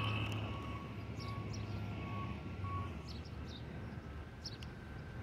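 Battery-powered RC truck running off across asphalt, its electric motor whine fading quickly as it gets far away, over a steady low hum. A faint beeping in short evenly spaced pulses, about two a second, runs through the first three seconds.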